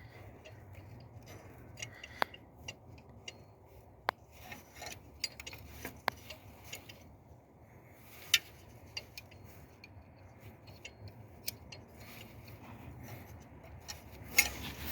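Scattered, irregular light clicks and taps of hand tools and small metal parts being handled during repair work, over a low steady hum, with a sharper knock about eight seconds in.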